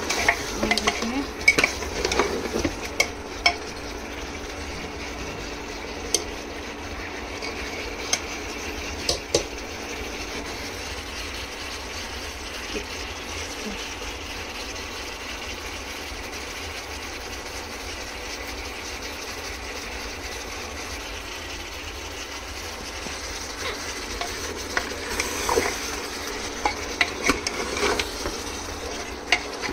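Mutton sizzling as it fries in oil in a pan, not yet fully fried (the oil has not yet separated). A spoon scrapes and knocks against the pan while stirring in the first few seconds and again near the end.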